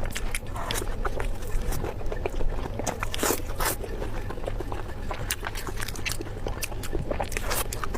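Close-miked eating: chewing with many wet mouth clicks and smacks at an irregular pace, a couple of louder bites about three and a half seconds in, over a steady low hum.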